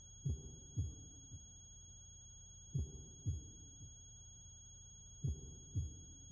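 Slow heartbeat sound effect: pairs of deep thumps, lub-dub, repeating about every two and a half seconds over a steady low drone.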